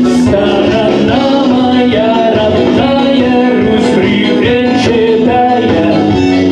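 A male vocalist singing live through a handheld microphone over an instrumental backing track. The melody has held and gliding notes, and there are occasional cymbal hits in the accompaniment.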